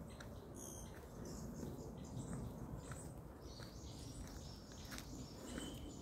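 Footsteps on a dry dirt forest path strewn with stones and fallen leaves, one step about every second, while birds chirp and trill in the trees, the bird notes busiest in the second half.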